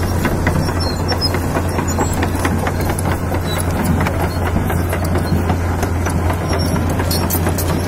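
Kobelco SK200 Super crawler excavator's diesel engine running steadily with a low, even hum, while the steel tracks clank and rattle as the machine travels. The engine runs smoothly, having been overhauled after a broken piston ring.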